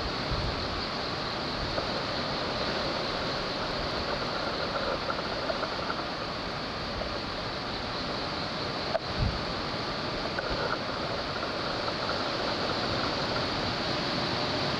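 Rough sea surf rushing along a rocky coast, stirred up by an approaching typhoon, with wind blowing across the microphone. The noise is steady, with a brief break and click about nine seconds in.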